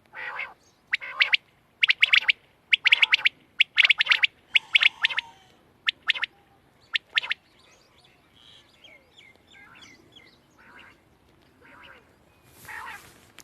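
Quail calling: short, sharp call notes repeated in quick groups over the first seven seconds, then fainter scattered chirps. There is a brief burst of noise near the end.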